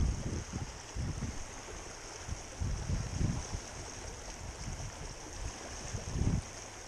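Steady rush of running stream water, with a few irregular low thumps under it.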